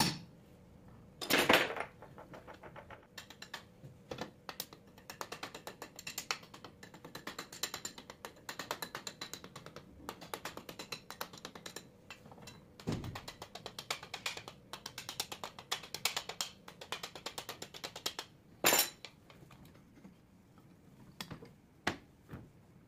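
Hand-tool work on a 24-volt alternator's metal housing and rotor: one loud ringing metal strike about a second and a half in, then a long run of quick light metallic clicks, and a few sharp knocks near the end.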